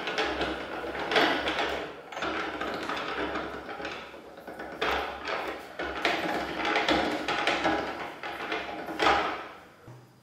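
Steel gears and grooved rollers of a jewellery rolling mill grinding as silver wire is rolled through. The sound comes in surges a few seconds long with brief pauses between them, and stops about ten seconds in.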